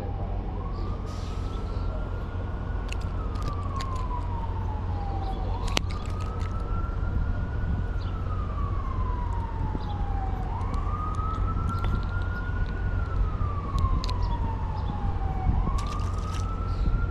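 Emergency vehicle siren sounding a slow wail. Each cycle sweeps quickly up, then slides down over about four seconds, repeating about every five seconds over a steady low rushing noise.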